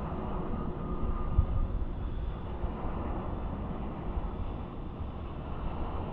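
Jet engines of a Boeing 787-8 Dreamliner on final approach, a low, steady rumble with no distinct whine, and one short low thump about a second and a half in.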